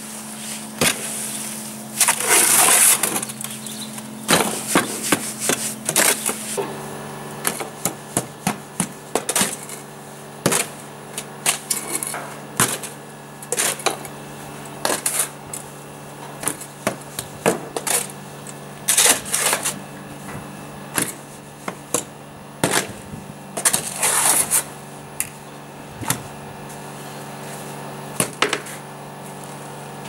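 Steel spade scraping and chopping through wet cement mix in a metal wheelbarrow, with irregular clanks of the blade against the barrow pan and a few longer scraping passes, over a steady low hum.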